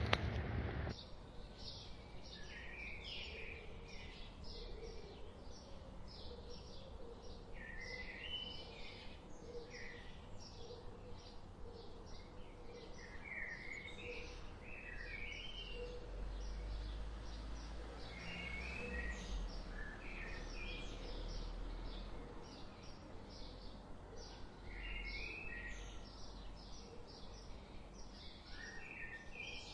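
Songbirds chirping and calling: a steady run of short, high chirps, with zigzag calls every few seconds over a faint low rumble. A rush of noise cuts off about a second in.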